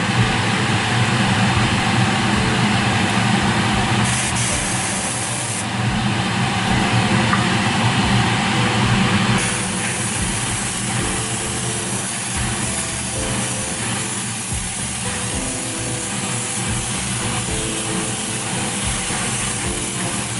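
Spray-booth extractor fan running steadily with a low hum, under the hiss of an airbrush spraying a mist coat of acrylic primer. The hiss shifts in strength a few times and eases off about nine seconds in.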